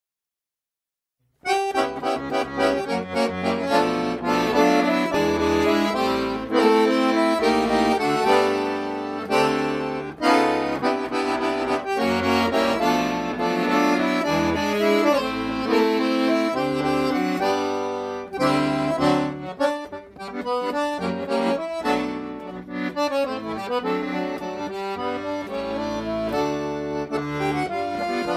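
Instrumental background music that starts after about a second and a half of silence, with a moving melody over a changing bass line.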